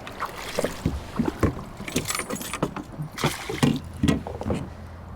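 Irregular knocks, clicks and small water plops from handling a freshly caught bass aboard a fishing kayak.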